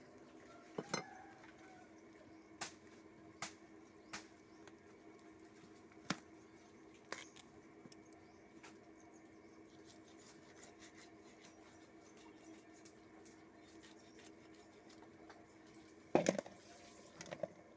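A large knife knocking and clicking now and then against a wooden chopping block as a plucked chicken is cut apart, over a faint steady hum. Near the end comes a louder clatter as a cut piece goes into an aluminium bowl.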